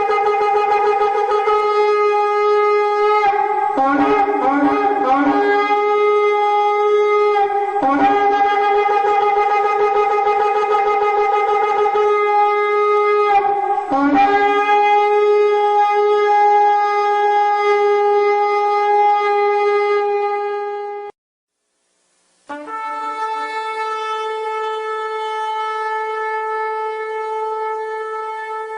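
Shofar blown in long held blasts, broken in places by short, quick notes. About two-thirds of the way through it stops dead for a second or so, then a new long blast starts.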